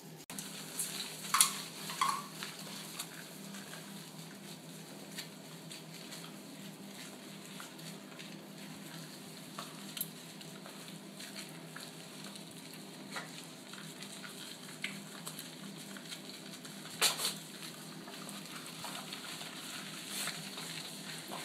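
Hands lathering and rubbing a wet Yorkshire terrier's coat in a shower tray: a steady soft wet crackling and squishing, broken by short clicks and knocks. The loudest knocks come about a second in and late on.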